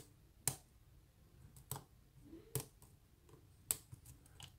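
A hook pick and tension tool working inside a pin-tumbler lock's keyway: four sharp metallic clicks roughly a second apart, with faint scraping between them.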